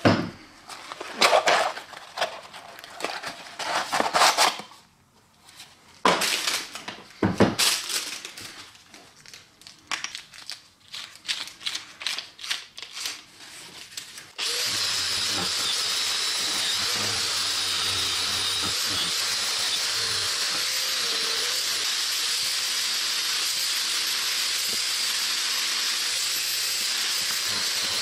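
Handling knocks and clatter for the first half. About halfway in, an angle grinder fitted with a crimped wire cup brush starts and runs steadily with a high whine, the brush scouring the back of a metal plate.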